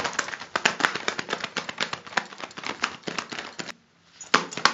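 Rubber gloves flapped and shaken in quick succession, a fast run of slaps used as a Foley imitation of a bird's wings flapping. The run stops briefly near the end, then resumes with a couple of louder slaps.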